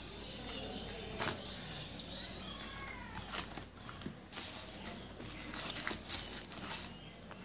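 Rustling and crinkling from handling a paper insert and plastic-sleeved DVD discs, a series of short rustles that is busiest in the second half.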